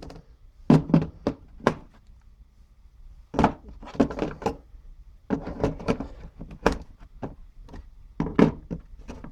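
Handling noise from a set of snap ring pliers and their case: clusters of quick knocks and clacks as the tools are picked up, set down and moved about, in four bursts with short pauses between.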